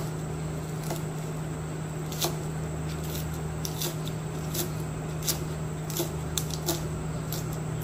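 Kitchen knife slicing spring onions lengthwise on a cutting board: irregular light clicks and taps of the blade against the board, over a steady low hum.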